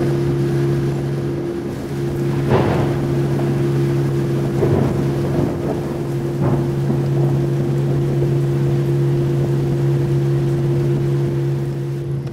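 A tour boat's motor running steadily with a low drone. Three short, louder rushes of noise come over it about two and a half, four and a half and six and a half seconds in.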